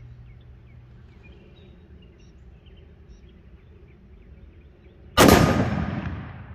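A single shot from a Ruger SFAR .308 semi-automatic rifle about five seconds in, loud and sudden, with an echoing decay of over a second. It is fired on gas setting 1, too low for the action to cycle.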